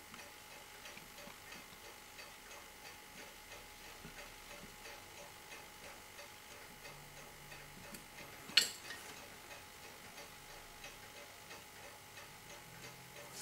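Steady, faint ticking of a mechanical timepiece, with one sharp click about eight and a half seconds in that stands out as the loudest sound.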